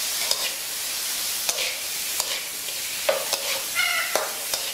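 Shell-on shrimp and garlic sizzling in a wok while a metal spatula stirs them, scraping and clinking against the pan about eight times, with a couple of short squeaky scrapes.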